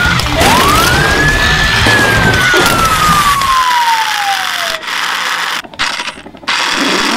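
A police siren wails once, rising quickly in pitch and then slowly falling, over loud background music.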